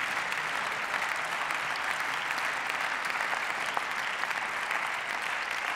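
Members of parliament applauding steadily in the plenary hall, thanking the ushers.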